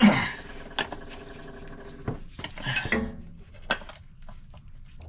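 Steel combination wrenches clanking on a diesel oil pan's drain plug: one sharp clang at the start that rings for about two seconds, then a few lighter clinks and scrapes.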